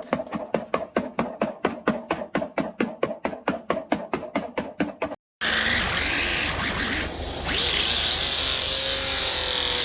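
Air conditioner being cleaned: a fast, even run of short scrubbing or rattling strokes, about six a second, for about five seconds. It breaks off abruptly, and after a short gap comes a steady hiss, as of a spray or air jet on the unit.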